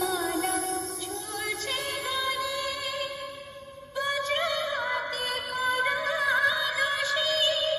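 Vocal section of a DJ sound-test track: a high, processed-sounding female-style voice sings long held, wavering notes over music. It fades about three seconds in, then comes back abruptly with a new phrase about a second later.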